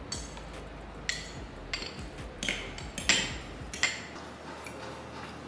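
Metal spoons and serving utensils clinking against ceramic plates and a pan, about six light clinks spread over four seconds, then only faint table sounds.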